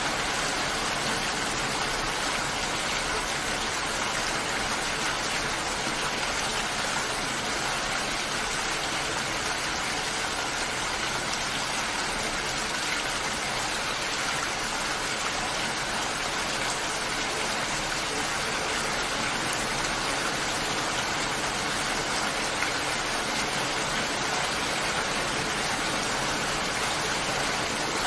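Steady rainfall: an even, unbroken hiss of rain with no change in strength.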